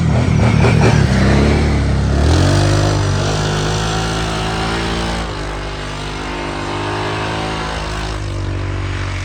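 Kawasaki Brute Force 750 ATV's V-twin engine running under throttle while riding. Its note rises and falls several times as the throttle changes.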